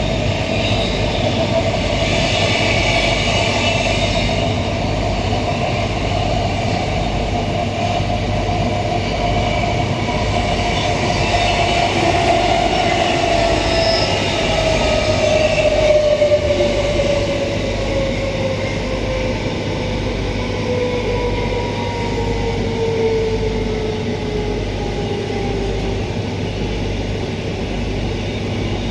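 Queensland Rail EMU electric train running, heard from inside the passenger car: steady rail and running noise with a low hum. About twelve seconds in, a motor whine begins falling steadily in pitch as the train slows.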